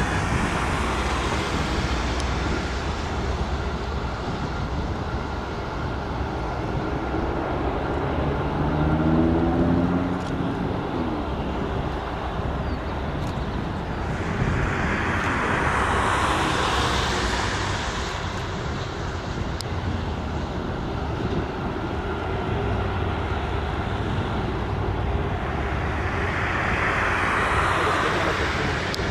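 Boeing KC-135R's four CFM F108 turbofan engines at taxi power: a steady jet rumble and hiss that swells twice, about halfway through and again near the end.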